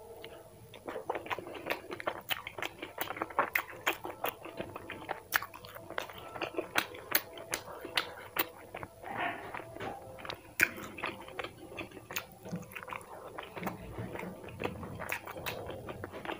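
A person chewing food, with a rapid, irregular run of sharp crunches throughout.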